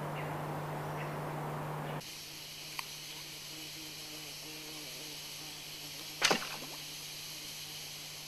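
A hand-made bow is shot once, about six seconds in, giving a single sharp snap with a brief tail as the arrow is loosed at a fish in the river. A steady high hiss sits underneath.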